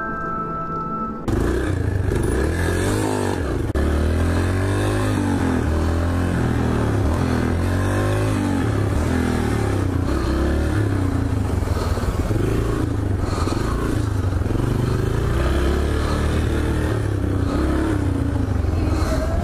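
A short music sting for about the first second, then a dirt bike's engine running and revving up and down again and again as it is ridden.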